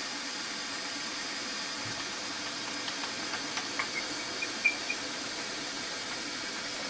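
Milling machine running steadily while the table feeds a light cut along a steel conrod, a faint high whine over an even hiss, with a few small ticks near the middle.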